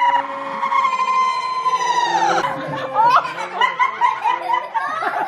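A long, high held note drops away about two seconds in, and then a group of people laugh in short bursts.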